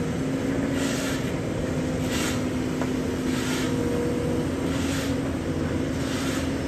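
Caterpillar hydraulic excavator's diesel engine running steadily as the machine digs, a constant low hum with a hiss that swells and fades about every second and a half.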